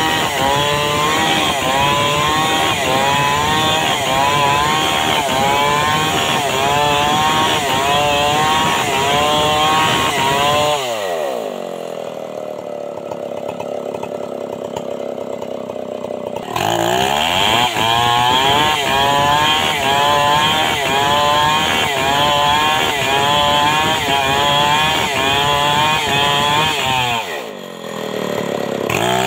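Large Stihl two-stroke chainsaw ripping a log lengthwise at high revs, its pitch bobbing up and down as the chain bites. About a third of the way through it falls to idle for several seconds, then revs back up and cuts on. Near the end it drops off briefly and revs again.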